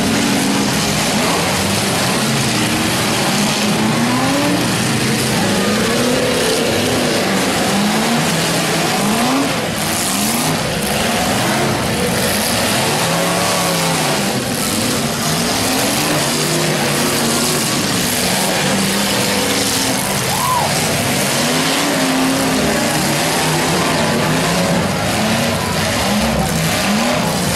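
Several demolition derby cars' engines revving up and down again and again, their pitches rising and falling over one another, with the noise of spinning tires and a few sharp bangs around the middle.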